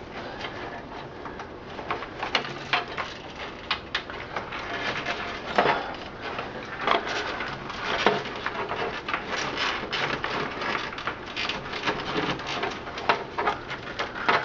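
Cables and plastic connectors being handled and pulled inside a desktop computer case: a string of irregular clicks, taps and rustles.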